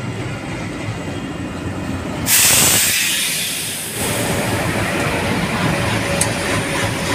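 Diesel-hauled passenger train running past close by: locomotive engine and wheels rumbling on the track. About two seconds in a sudden loud hiss starts and fades over a second or two.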